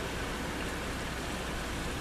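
Steady rain falling in a thunderstorm, an even hiss with no breaks.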